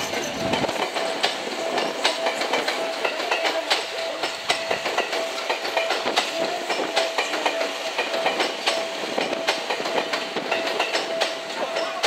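Electric commuter train moving slowly through the station. Its wheels click unevenly over the rail joints and points, over a steady, even hum.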